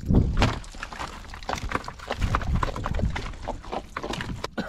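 Freshly caught trevally being handled and flapping: a quick, uneven run of knocks and slaps against hard surfaces.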